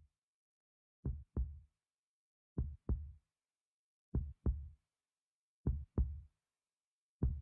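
Slow, deep heartbeat sound effect: double thumps (lub-dub) repeating about every one and a half seconds, five beats in all.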